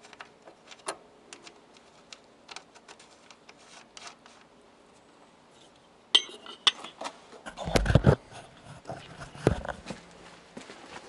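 Metal tools and parts being handled while a car horn is unscrewed: small scattered clicks and ticks, then clinking metal from about six seconds in, with heavy knocks near eight seconds and again about a second and a half later.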